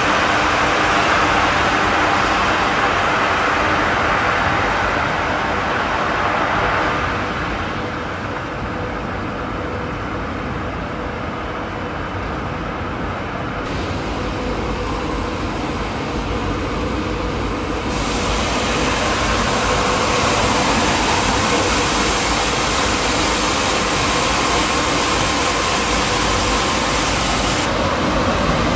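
Solar panel dismantling line machinery running: a steady mechanical din with a faint constant hum. Its mix changes abruptly a few times, about a quarter of the way in, around the middle and near the end.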